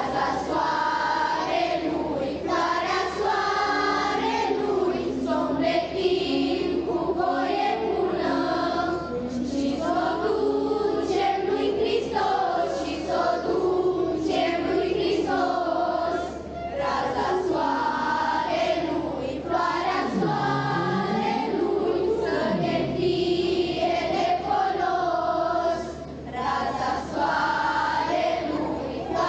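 Children's choir singing a Romanian Christmas carol (colindă) in long sung phrases, with short pauses between lines about halfway through and near the end.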